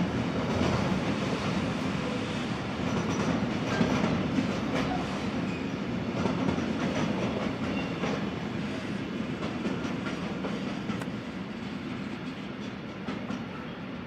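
A train rolling through points, its wheels clattering over rail joints and switch frogs above a steady rumble, fading over the last few seconds.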